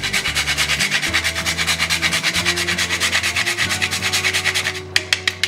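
Whole nutmeg being grated on a small metal hand grater in fast, even scraping strokes, about nine or ten a second, stopping about five seconds in. A few sharp taps follow near the end.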